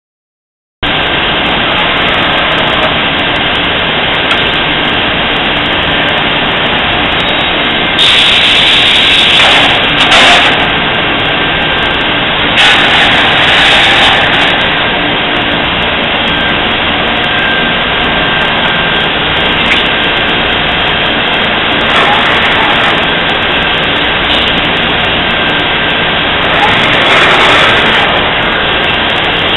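Steady loud running noise of a Cincinnati Maxim 630 horizontal machining center and its shop machinery under power, with a thin steady high whine. The noise starts abruptly about a second in and is broken by four louder hissing bursts of one to two seconds each.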